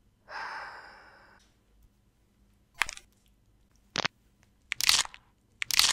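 A long sigh breathed out into the hands held over the face, fading away over about a second, then a few short sharp sounds, the loudest near the end.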